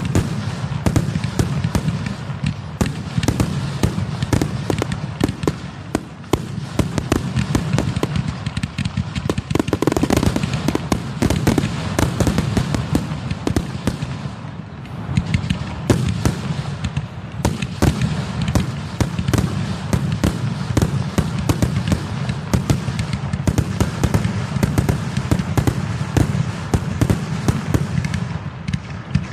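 Fireworks finale: a dense, continuous barrage of bangs, many a second and overlapping, thinning briefly about halfway through before building again.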